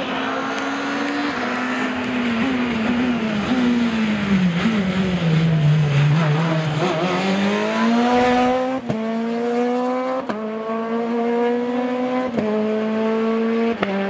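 Peugeot rally car engine slowing into a tight bend, its note dropping. It then accelerates hard past and away, the pitch climbing in steps through four quick upshifts.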